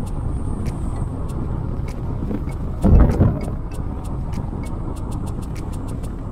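Fiat 500 driving along, heard from inside the cabin: steady low engine and road rumble. A brief louder rumble comes about halfway through.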